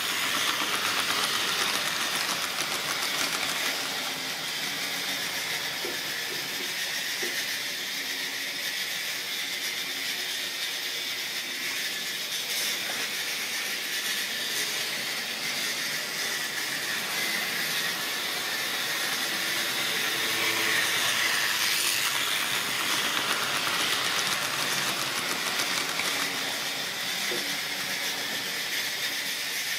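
Model railway train with a rake of tank wagons running on its track: a steady whirring hiss of motor and wheels, loudest at the start as the wagons pass close by, easing off, then rising again about twenty seconds in.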